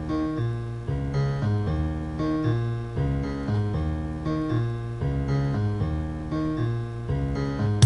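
Solo bass riff of short pitched notes stepping up and down in a repeating pattern.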